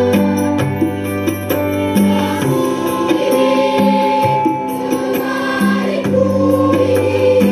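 Large massed school choir singing an Indonesian patriotic song in chorus, holding long notes that change every second or so.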